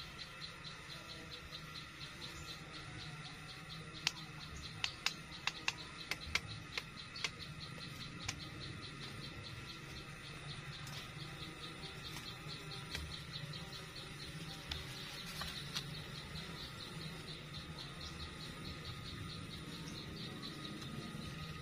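Insects chirring steadily in a fast, regular pulsing trill, with a run of about ten sharp clicks between about four and eight seconds in.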